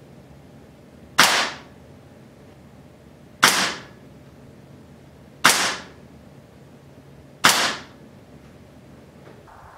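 Four sharp shots about two seconds apart, each dying away quickly: a Hatsan Carnivore 30 .30-calibre spring-piston air rifle firing pellets into a paper target.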